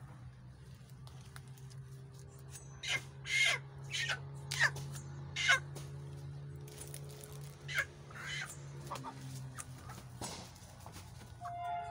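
Chicken giving a string of loud, harsh squawks, thickest between about three and six seconds in, over a steady low hum.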